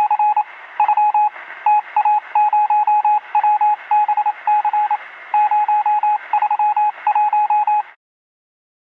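Electronic beeps at one steady pitch, keyed in rapid, irregular groups of short and longer tones like Morse code, over a thin radio-style static hiss. The beeping cuts off suddenly about 8 seconds in, leaving silence.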